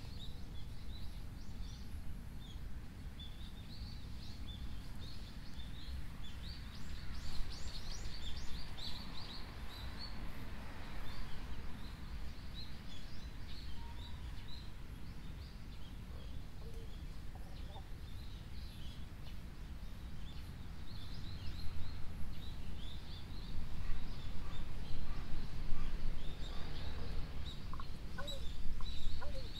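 Small birds chirping in many short, quick calls, thicker in bursts, over a steady low rumble.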